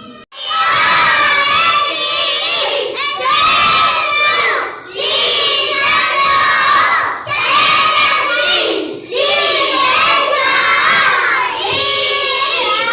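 A group of young children chanting loudly in unison, half-shouting a learning song in phrases of about two seconds with short breaks between them.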